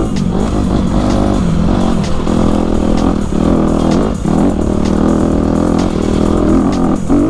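Dirt bike engine running under the rider, its revs rising and falling repeatedly as it is ridden along a trail.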